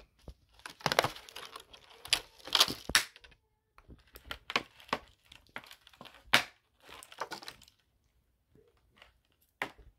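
Clear plastic doll packaging crinkling and crackling in irregular bursts as the doll is worked out of it by hand, with a quieter stretch near the end.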